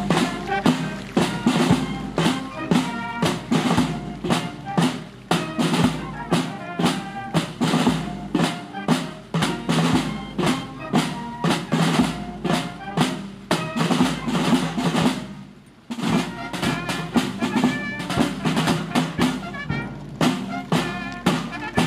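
Military marching band playing a march: held melody tones over regular snare and bass drum beats. The music drops away briefly about sixteen seconds in, then carries on.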